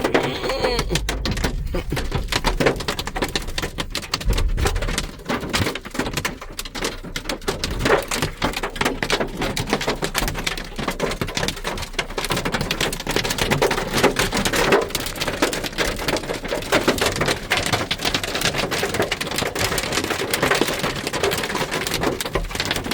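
Hailstones pelting a car's roof and windshield, heard from inside the car: a dense, continuous hammering of countless small hits.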